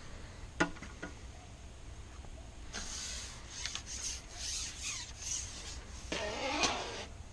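Fishing tackle being handled: two sharp clicks about half a second apart, then several seconds of rubbing and scraping as the pole and gear are moved about.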